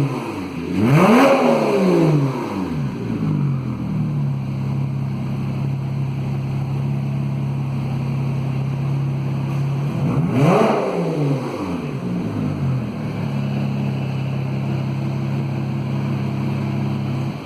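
Porsche Boxster S flat-six with a sports exhaust, blipped twice from idle. Each rev climbs and falls back within about two seconds, the first about a second in and the second about ten seconds in, with the engine idling steadily between and after.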